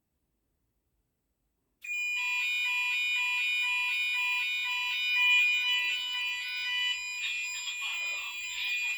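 GENT Vigilon fire alarm sounders going off, starting suddenly about two seconds in, as the system goes into alarm from a detector being tested: a steady high tone over a lower tone pulsing about twice a second.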